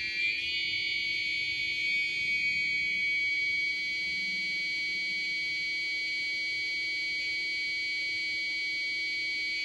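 High-pitched electronic buzzing tone from a 555 timer oscillator circuit's sound output. Its pitch shifts up at the very start as the potentiometer is turned higher, then holds steady.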